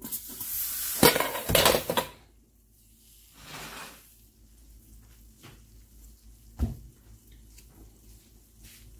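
A metal cooking pot clattering against the electric stovetop as it is gripped with a cloth and dragged forward, with a burst of sharp knocks about a second in and one more knock near the end.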